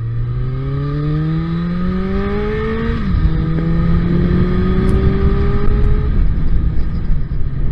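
Suzuki Bandit 1200's inline-four engine pulling away under acceleration, its pitch rising steadily, then dropping sharply about three seconds in as the rider shifts up, and rising again more gently. Near the end it settles to a steady lower drone with wind noise on the microphone.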